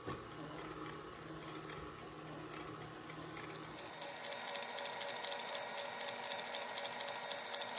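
KitchenAid Ultra Power stand mixer running, its wire whisk beating softened cream cheese in a stainless steel bowl. About four seconds in, its pitch changes and it gets a little louder.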